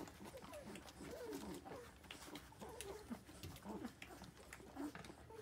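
Corgi puppies nursing: many short, faint squeaks from the pups, with soft clicks of suckling.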